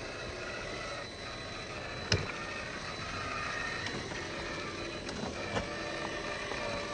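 Traxxas TRX-4 Sport RC crawler's electric motor and gear drivetrain whining as it crawls, the whine shifting in pitch with throttle, with a few sharp clicks, the loudest about two seconds in.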